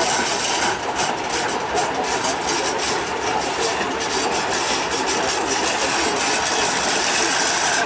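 Diesel engine of a Tatra 815 8x8 trial truck running steadily as the truck creeps down a steep slope.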